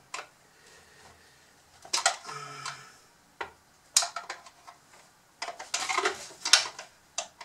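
Hard plastic parts of a Bruder CAT D11 toy bulldozer clicking and knocking as they are handled and worked apart. The clicks are scattered, with a quicker run of them near the end.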